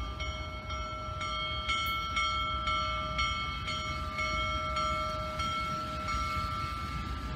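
Steam locomotive's bell ringing steadily, about two strokes a second, each stroke ringing on with several high tones, over the low rumble of the approaching Union Pacific Big Boy 4014.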